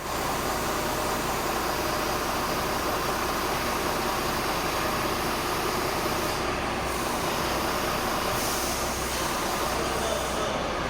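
Woodworking machinery running with a steady, dense mechanical noise.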